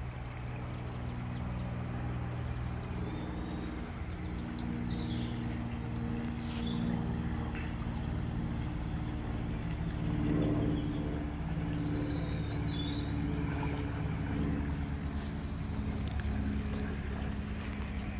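A steady, low engine drone, made of several held tones that shift now and then, with small birds chirping a few times over it.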